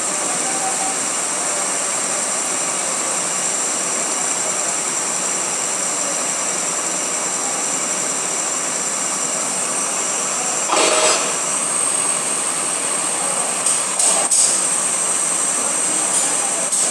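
Metal lathe running, turning a steel shaft under flowing cutting coolant: a steady machine whir with a high whine over it. A brief louder burst of noise comes about eleven seconds in, and a few short clicks follow a few seconds later.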